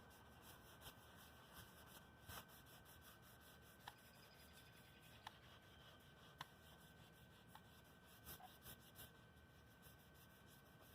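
Faint, irregular scratchy strokes of wet sandpaper rubbing over a car's painted quarter panel, with a few light ticks, as the clear coat is scuffed.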